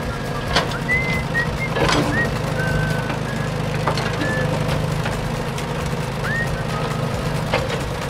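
A steady low engine-like hum runs under short, high whistled chirps that come every second or so, some rising at the end. A few sharp clicks fall in between.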